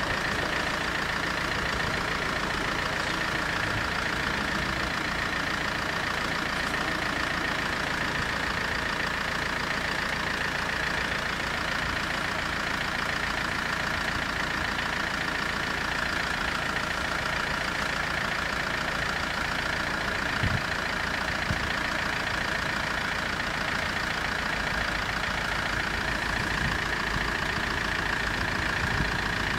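Italian level-crossing warning bells ringing in a steady rapid stream while the crossing is closed, over the low idle of waiting vehicles' engines.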